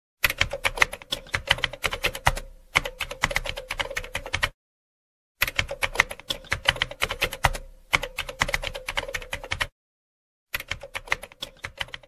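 Typing sound effect: rapid key clicks in runs of a few seconds with short silent pauses between, over a faint steady tone, accompanying text being typed onto the screen.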